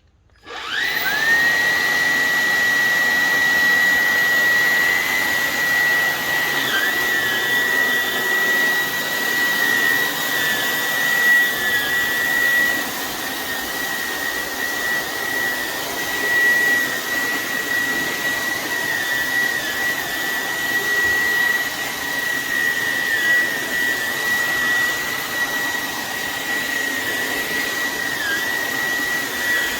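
Hoover ONEPWR WindTunnel Emerge cordless stick vacuum switching on about half a second in, its pitch rising quickly to a steady high whine over a rush of air. The pitch dips briefly now and then.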